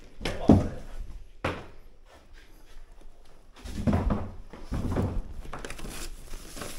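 A few dull knocks and thuds from handling: a heavy one about half a second in, a sharper knock about a second and a half in, then a cluster of bumps around four to five seconds in.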